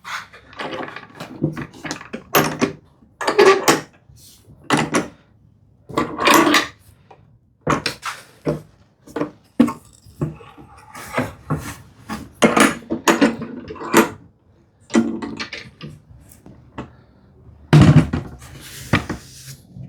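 A long run of irregular knocks and clatters of wood and metal, about twenty in all, some ringing briefly: clamps and the freshly glued mortise-and-tenon frame being handled on the bench.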